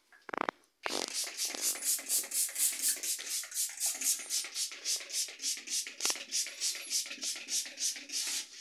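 Hair being styled: a quick, regular run of short hissing strokes, about four a second.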